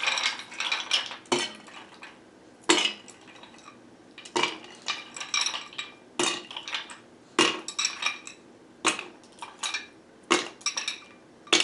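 Ice cubes dropped by hand into a metal cocktail shaker: a sharp clink with a short ring about once a second, unevenly spaced, with softer ice clatter between.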